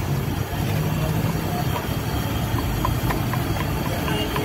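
Batata vadas deep-frying in a large kadhai of hot oil: a steady sizzle with scattered small pops and clicks. A low hum sits under it for about the first second.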